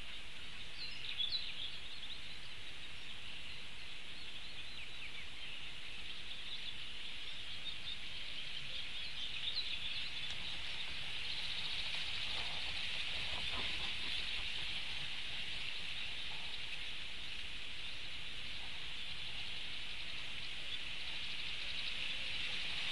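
Reed-bed ambience: a steady high-pitched hiss, with a few faint bird chirps about a second in and again around nine seconds in.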